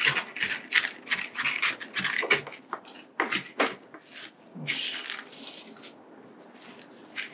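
Potting soil being poked and pressed down into a plastic pot to close the air gaps: a quick run of crunchy scratching strokes for about three and a half seconds, then a longer rustle around five seconds in.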